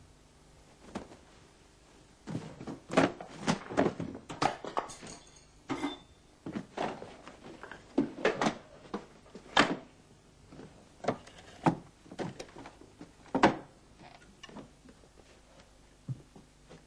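Irregular knocks, thuds and clatter of wooden furniture and objects being handled and shifted about a small room. There are many short hits in quick clusters, the loudest about three seconds in, near the middle and near the end.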